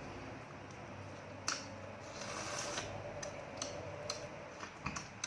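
A few light clicks and taps at a meal, with a short rustle about two seconds in: utensils and food being handled.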